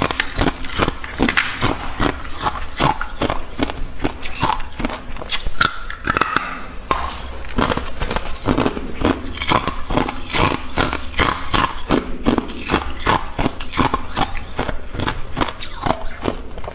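Hard ice being bitten and crunched close to a lapel microphone: a rapid, irregular run of crisp cracks and crackles as the pieces are chewed.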